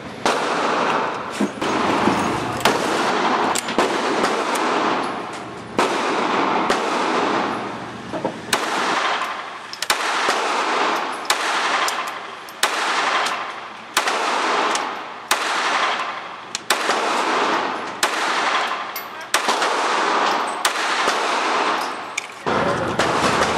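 Semi-automatic pistol shots fired in steady succession, roughly one a second for most of the span, each sharp crack followed by a long echo off the concrete walls of an indoor range.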